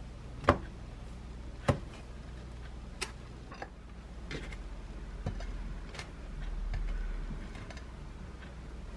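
Sharp clicks and light knocks of a metal spreading knife and dishes handled on a kitchen counter, over a steady low hum. Two loud clicks come in the first two seconds, then a few fainter taps.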